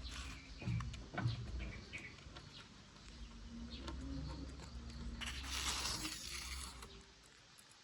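Puppies eating: scattered small wet chewing and smacking clicks, with a longer rustling scuffle about five seconds in.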